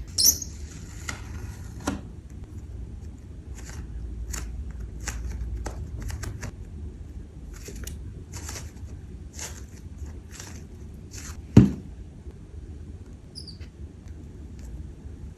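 Hands handling a squishy toy in its plastic packaging: a brief crinkly rustle at the start, then scattered small crackles and taps, with one louder knock about twelve seconds in.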